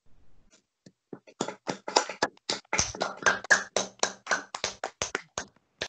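Children applauding over a video call: a quick, uneven run of hand claps starts about a second in and goes on until just before the end.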